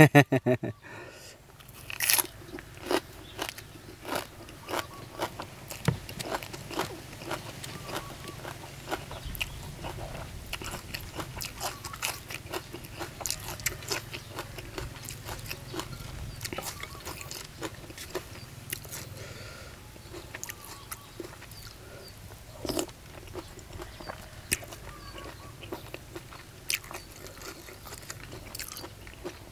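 A man chewing and crunching mouthfuls of fresh raw greens and green papaya salad close to the microphone: many crisp crunches, steady throughout.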